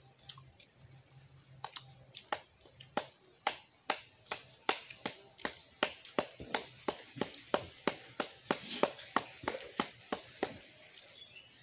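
A quick, irregular series of sharp taps and clicks from a knife chopping fish on banana leaves laid on the ground. The taps are sparse at first, come two to four a second for most of the stretch, then thin out near the end.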